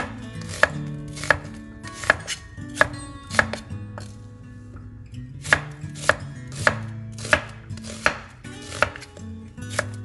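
Chef's knife slicing an onion on a wooden cutting board: a steady run of sharp knocks as the blade meets the board, about one and a half a second, with a short pause a little before the middle.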